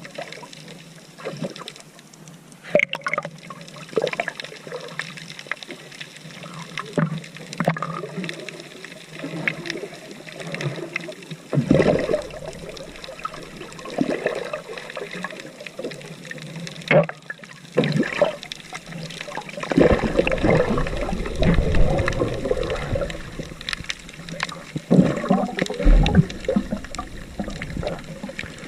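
Seawater sloshing and splashing in irregular bursts, with a low rumble joining about two-thirds of the way in.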